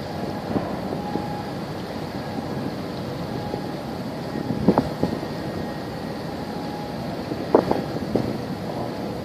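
Wind buffeting the microphone over a steady low rumble, with a faint hum coming and going. Two short thumps come about halfway through and about three-quarters of the way through.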